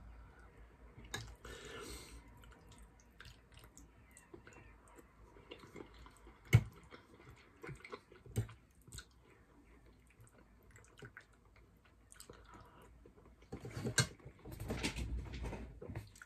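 Quiet close-up eating sounds: chewing and wet mouth noises with scattered small clicks. There is a sharp click about six and a half seconds in, and a denser stretch of chewing near the end.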